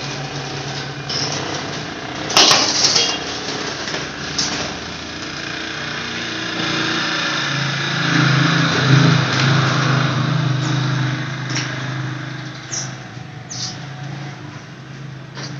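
A small motor drones steadily, growing louder around the middle and then fading. A short, sharp rattle comes about two and a half seconds in, and a few brief high squeaks come near the end.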